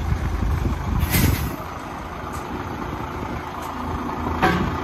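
1997 Blue Bird TC2000 school bus's 8.3 Cummins inline-six diesel running at idle, with a short burst of hissing air from its air system about a second in and a brief knock near the end.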